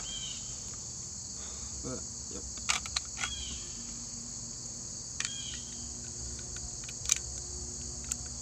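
A steady, high-pitched insect chorus, with a few sharp clicks and knocks as a scoped rifle and its magazine are handled on a table. The loudest click comes about seven seconds in.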